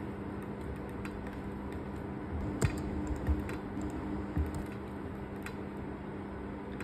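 About four scattered clicks from someone working a computer, over a steady low hum.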